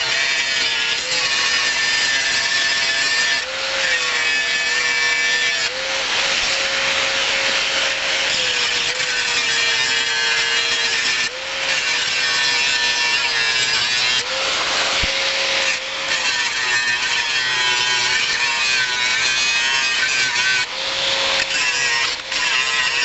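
A handheld power tool grinding or abrading, running continuously. Its motor pitch rises briefly and drops back many times as it is eased off and pressed on again.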